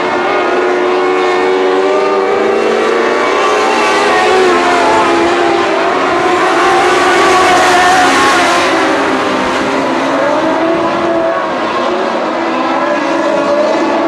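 Several modlite dirt-track race cars running laps together, their overlapping engine notes rising and falling as they accelerate and lift around the oval. The sound grows louder about halfway through as the cars pass closest, then falls back.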